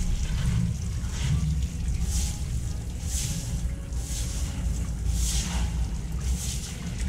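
Hose water splashing over a wet dog and a tiled floor as it is bathed, heard as a hiss that swells and fades about once a second. Under it runs a steady low rumble of wind on the microphone.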